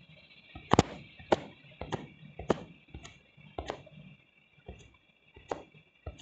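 A series of sharp, irregular taps, about ten in six seconds, some louder than others, over a faint steady high hiss.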